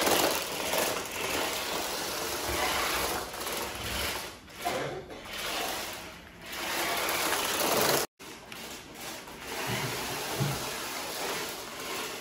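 Toy RC stunt car's small electric drive motors and gears whirring as it drives over tile, rising and falling as it speeds up and slows. The sound cuts out abruptly for a moment about eight seconds in.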